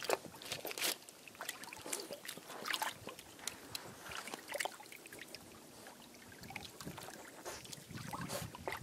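Shallow seawater sloshing and splashing around a French Bulldog's legs as she wades among seaweed at the water's edge, a run of small irregular splashes.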